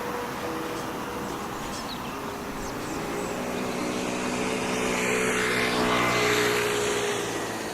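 An engine passing close by: a motor hum that grows louder from about three seconds in and fades again near the end, over steady background noise.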